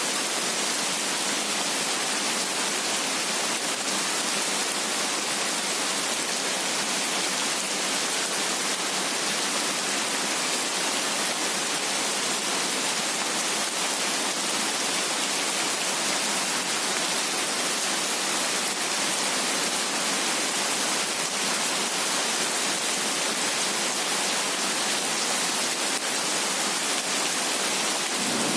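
Steady heavy rain: an even, unbroken hiss with little low rumble.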